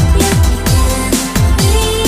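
Electronic breakbeat dance track: a driving drum beat with deep bass hits that drop in pitch about twice a second, under held synth chords.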